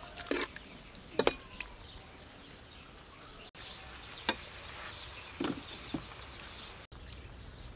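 Metal spatula knocking and scraping against a wok while stir-frying shrimp, squid and broccoli: a few short, sharp clanks at irregular intervals over steady background noise.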